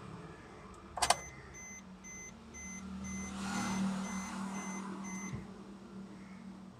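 A sharp click about a second in, then the Suzuki S-Cross instrument cluster sounds a run of short high beeps, about two a second for some four seconds: the warning chime that goes with the ignition switch position message. A steady low hum comes in partway through.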